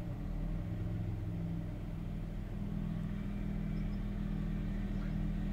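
Kia Grand Carnival engine idling steadily, heard from inside the cabin, with the automatic transmission held in reverse on the brake. The gears are being cycled so the fresh transmission fluid fills the torque converter and circulates.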